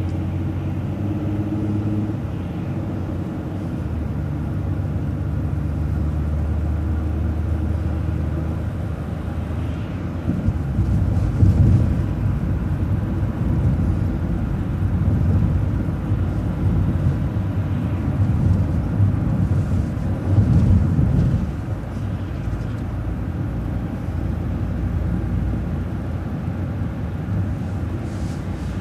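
Transit bus running, heard from on board: the engine turns over steadily for about ten seconds, as at a stop. Then the bus moves off, and engine and road noise swell and ease several times as it drives.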